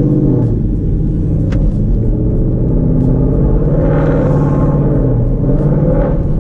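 2018 Mustang GT's 5.0 L Coyote V8 heard from inside the cabin while driving off under light throttle, its exhaust running through a newly fitted Steeda H-pipe in place of the factory X-pipe. The deep engine note rises and falls in pitch several times.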